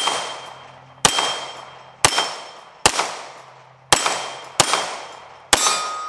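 CZ Shadow 2 9mm pistol fired seven times at a slow, slightly uneven pace of about one shot a second. A ringing tail follows each shot.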